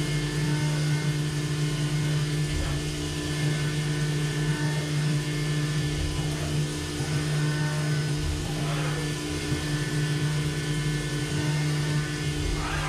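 CNC milling machine's spindle running at constant speed while its diamond cutter machines G10 fiberglass composite under flood coolant: a steady hum of unchanging pitch over a hiss of cutting and coolant spray.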